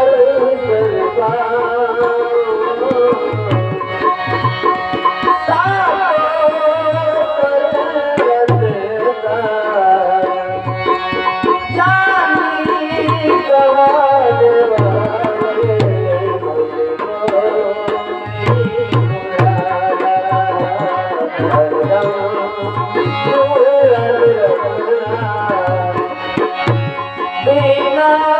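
Indian devotional music: a tabla plays a steady rhythm of deep strokes under a wavering melody line.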